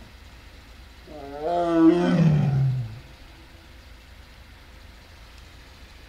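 Amur tiger giving one loud roar lasting about two seconds, falling in pitch toward the end. A steady low rumble runs underneath.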